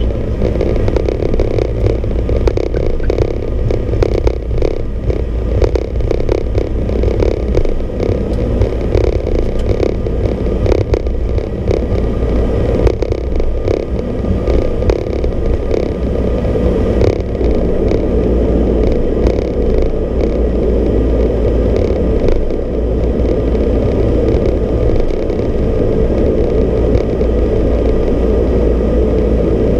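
Steady cockpit noise of an ATR 42-320's Pratt & Whitney PW121 turboprop engines and propellers, with a deep rumble underneath. Irregular small rattles and knocks from the airframe come and go in the first half, then the noise settles to an even drone.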